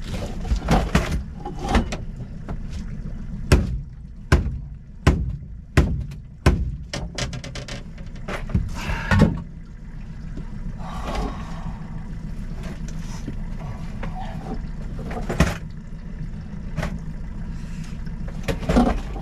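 Irregular knocks and thumps on the boat floor as a freshly landed coho salmon is handled in the landing net, over a steady low hum. The knocks come thick in the first half, then only now and then.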